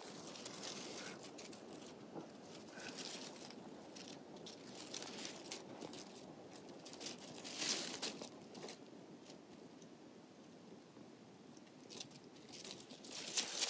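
Rustling and crunching of dry leaves and undergrowth in irregular bursts, loudest about eight seconds in and again near the end.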